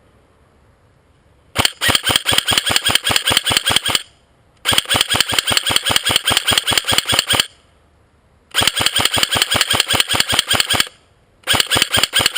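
G&G blowback AK47 airsoft electric gun firing four long full-auto bursts, each a rapid even stream of mechanical clacks lasting two to three seconds, with short pauses between.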